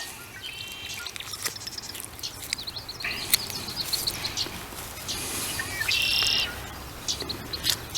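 Small birds chirping outdoors: a few short, high, rapid trills, the loudest about six seconds in.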